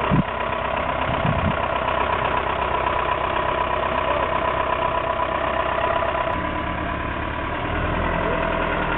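Modified off-road Jeep's engine running at low revs as it crawls over rocks, with a few low thumps in the first two seconds; the engine sound changes about six seconds in.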